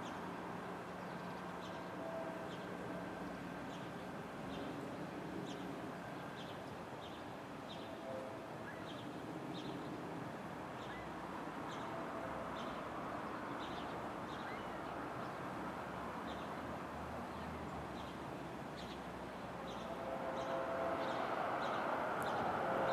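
A distant train horn gives a few short two-tone blasts, then sounds a long blast that grows louder near the end as the train approaches. Under it is a steady outdoor rumble with short high chirps about once a second.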